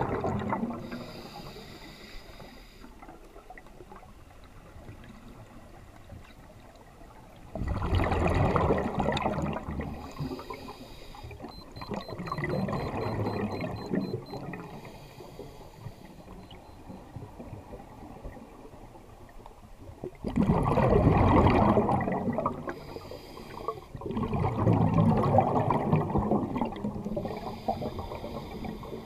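Scuba diver breathing through a regulator underwater: short hissing inhalations alternating with longer, louder rushes of exhaled bubbles, four or five breaths in all.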